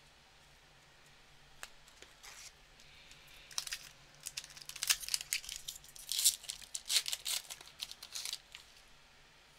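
Foil wrapper of a 2020-21 Upper Deck hockey card pack crinkling and tearing as it is ripped open by hand. It is a run of sharp crackles that starts about three and a half seconds in and lasts about five seconds, after a couple of faint clicks.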